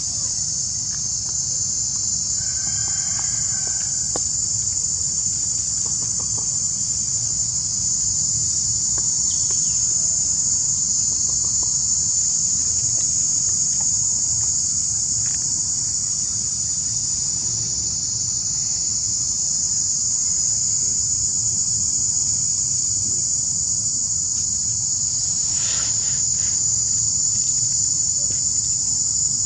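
Insect chorus: a steady, high-pitched shrill that never breaks, with a few faint clicks near the end.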